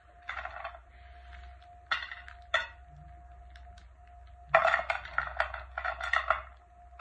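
Broken chocolate-coated wafer bars (KitKat, Munch, Bar One, 5 Star) being scooped up and crushed in the hands: short bursts of crackling and crunching, a few scattered at first, then a dense run in the second half.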